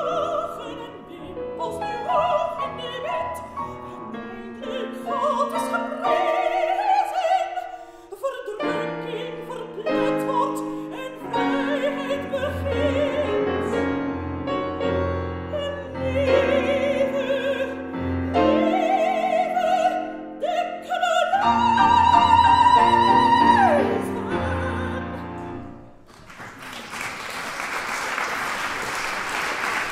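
A soprano singing a classical art song with piano accompaniment, climbing to a high note held for about two seconds before the song closes. Near the end the audience breaks into applause.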